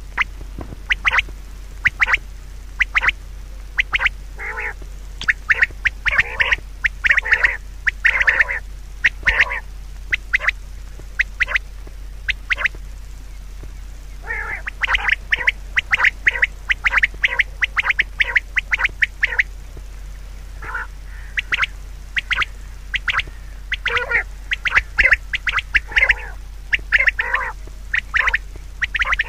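Animal calls: many short, sharp calls repeated all through, thickening into two busier runs.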